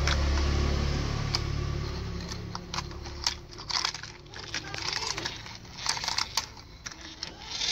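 Plastic toy vehicles handled and knocked together, with scattered clicks and short rattles. A low hum runs underneath at first and fades out about three seconds in.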